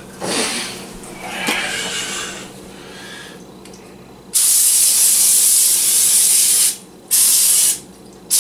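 Aerosol can of Pam cooking spray spraying onto a foil-lined pan. There is a few seconds of light handling noise, then a loud hiss lasting over two seconds, then a short burst near the end.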